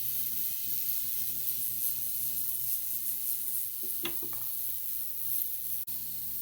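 Jeweler's polishing machine running, a steady motor hum under an even high hiss as a gold ring is buffed for its final polish. A short brief sound about four seconds in.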